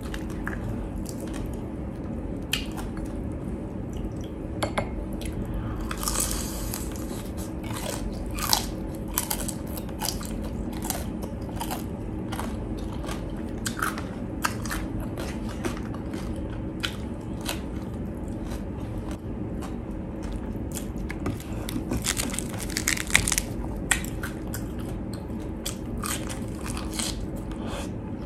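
A person biting and chewing crispy deep-fried pork, with irregular sharp crunches throughout and a run of louder crunches near the end, over a steady low hum.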